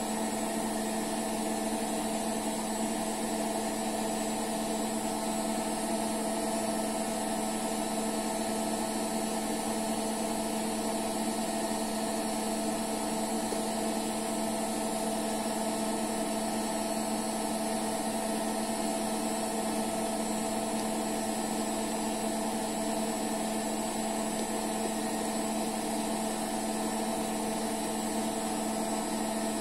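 Steady, unchanging hum of a small motor, with several fixed pitches.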